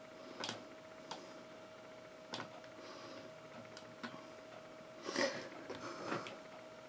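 Irregular light taps and clicks, about half a dozen, with a louder rustling knock about five seconds in, over a faint steady electrical hum.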